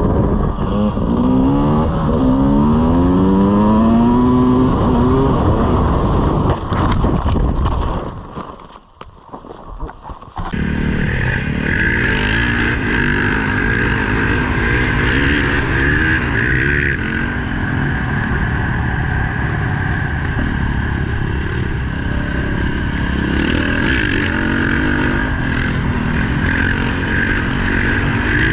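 Off-road motorcycle engines. First an engine revs up in several rising sweeps. Then, after a short lull, a dirt bike's engine runs steady at high revs, held on the throttle through a long wheelie.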